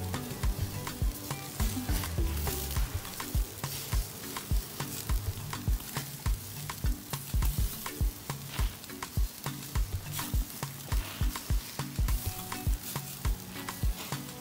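Marinated chicken sizzling and crackling on a charcoal grill as marinade is brushed on, under background music with a steady beat.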